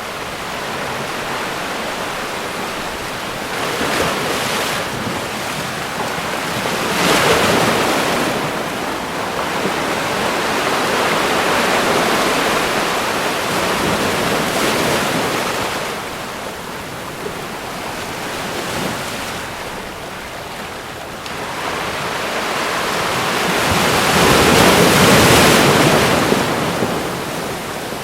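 Ocean waves breaking on a shore, a steady wash of surf that swells and recedes, with the biggest surges about seven seconds in and a long one near the end.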